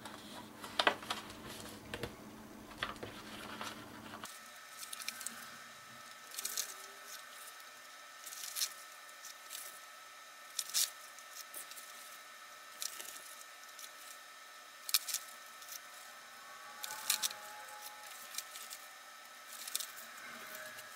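Kraft cardstock and paper being handled, folded and pressed together, with irregular short rustles and crinkles, including backing liner being peeled off double-sided score tape. A low background hum drops out about four seconds in.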